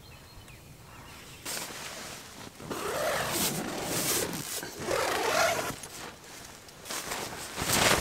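Rustling of dry fallen leaves, tent fabric and clothing as someone crawls out of a low tarp shelter, in several rough bursts starting about a second and a half in, loudest near the end.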